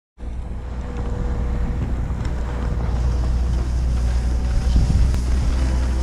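Wind buffeting the camera microphone: a steady low rumble with a hiss over it.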